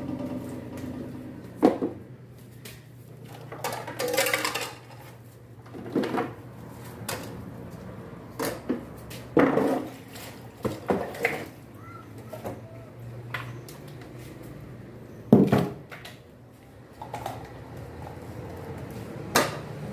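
Washing-machine parts being handled and set down on a workbench during reassembly: irregular knocks and clinks of hard parts, the loudest knock about fifteen seconds in, over a steady low hum.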